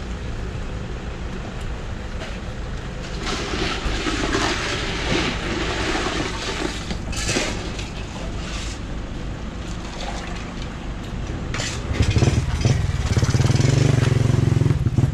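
A steady low engine hum, with rustling and clattering as coconut water is ladled from a plastic dispenser and bagged. About twelve seconds in, a much louder engine starts running close by.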